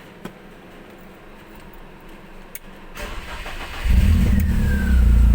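BMW E36 316i's 1.6-litre four-cylinder engine cold-started: a few faint clicks, then about a second of starter cranking before the engine catches, with a short falling whine from the starter, and settles into a loud steady idle. The cold-start idle is smooth and even now that the idle control valve has been cleaned.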